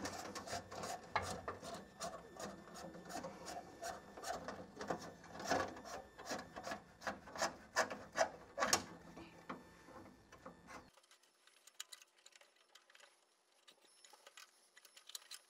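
Porsche steel throttle rod being pulled back and fed through the hangers in the floor tunnel: irregular scraping, rubbing and clicking of the rod against the tunnel and its brackets. It goes almost silent about eleven seconds in.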